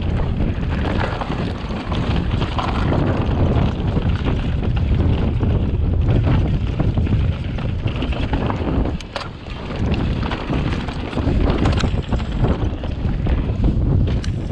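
Wind rushing over an action camera's microphone as a mountain bike rolls down a rocky dirt trail, with the tyres crunching over gravel. A few sharp knocks and rattles come from the bike over the rough ground, one about nine seconds in as the noise briefly drops, and more near the end.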